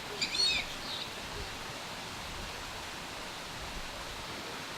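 A bird gives a quick burst of chirps near the start and one fainter chirp about a second in, over a steady hiss of background noise.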